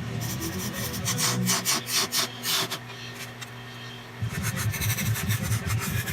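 Wood being cut on a lathe: a gouge scraping into a spinning bowl blank in a series of strokes over the lathe's steady hum. About four seconds in, a heavier low throbbing sets in.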